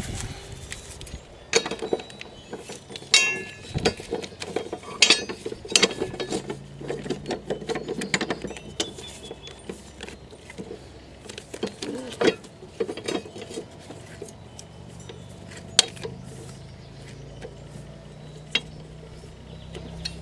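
Irregular metal clinks, knocks and ratchet-like clicking of hand tools at work on a lawn mower, fitting its blade. The clicks come thickest in the first half and thin out later.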